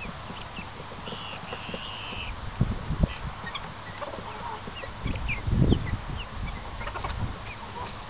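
Scattered short calls of poultry, with one longer steady high call about a second in, over several loud low thumps and rumbles, the strongest about two and a half, three and five and a half seconds in.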